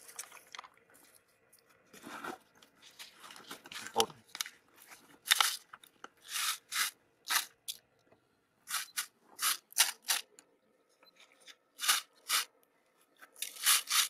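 A dozen or so short rustling, crunching noises, coming quicker from about five seconds in, as leafy twigs are handled and pushed in around a plastic-bottle bird trap.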